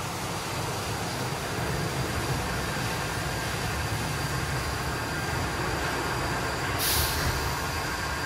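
Christ GENIUS C160 rollover car wash running a wash cycle: a steady rush of water and machinery with a low rumble underneath, and a short, sharp hiss about seven seconds in.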